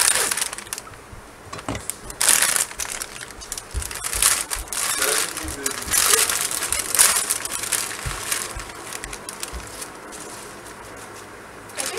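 Plastic spinach bag crinkling and rustling in irregular bursts as it is opened and handfuls of leaves are pulled out.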